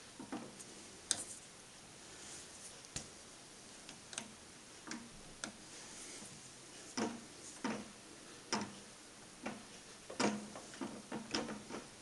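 Sparse, irregular light clicks and ticks from a milling machine's boring head being turned slowly by hand, its boring cutter at the aluminium bore, with no spindle motor running. The clicks come closer together near the end.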